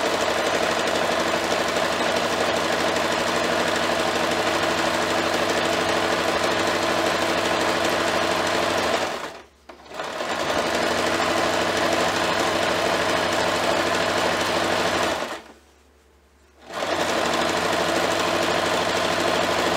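Singer sewing machine running steadily, stitching along a folded fabric tie with a fast, even needle rhythm. It stops briefly about halfway through and again for over a second later on, starting up again each time.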